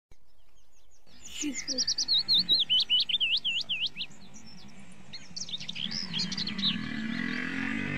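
A songbird chirping in rapid, repeated sweeping whistled notes, in two runs of song, over a low steady hum that grows a little louder near the end.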